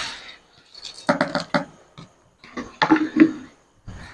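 Fried boondi tipped from a plate into a karahi of hot sugar syrup and stirred in with a steel ladle: a rustling pour at the start, then two short runs of the ladle scraping and clinking against the pan, about a second in and again near three seconds.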